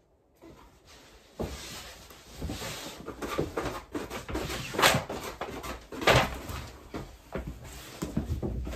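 Peel-and-stick wallpaper being unrolled and handled: rustling and crinkling with scattered clicks. It starts about a second and a half in, with two louder crackles about five and six seconds in.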